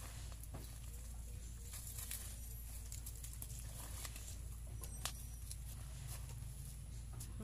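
A blade scraping and digging into dry, crumbly soil by hand, with loose earth and bits of root pattering down in short, irregular scrapes and clicks.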